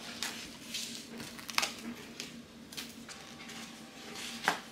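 Plastic packaging crackling and rustling as the film is peeled off a raw salmon fillet's plastic tray and the tray is tipped to slide the fillet onto a cutting board. There are sharp crackles about a second and a half in and just before the end.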